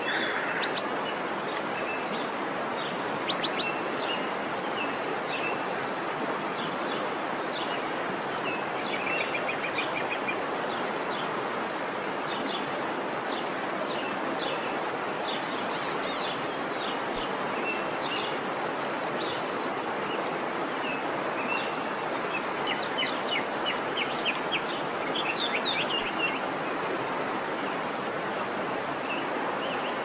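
Rushing river water, a steady unbroken hiss of flowing water. Small songbirds chirp over it throughout, with a quick trilled run of calls about three quarters of the way through.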